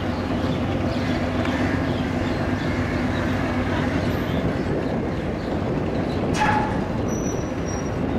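Ferry engines running at the pontoon, a steady low drone under general landing-stage noise, with a brief sharp sound about six seconds in.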